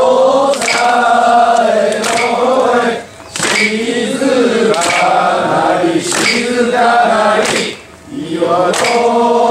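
A group of men chanting a long, drawn-out festival call in unison, the mikoshi bearers' chant, in phrases of about three seconds with short breaks about three seconds in and near the end.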